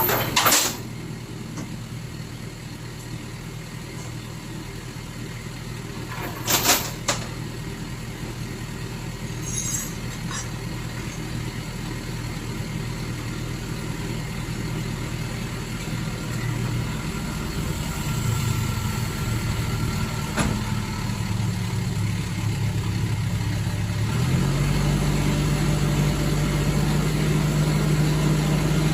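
A lorry engine idling steadily, then speeding up about three-quarters of the way through and holding a higher, louder steady pitch. Two short knocks come near the start and about a quarter of the way in.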